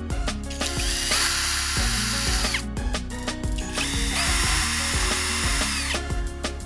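An electric power tool run twice in short bursts, each about one and a half to two seconds: a high whine that rises as the motor spins up and drops as it is released. Background music with a steady beat plays throughout.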